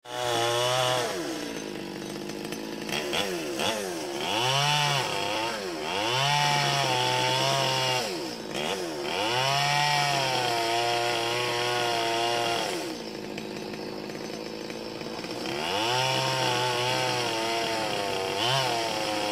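Chainsaw revving in repeated bursts, its pitch climbing and falling back each time. It is held high for a couple of seconds at a time and drops to a quieter idle for a few seconds past the middle.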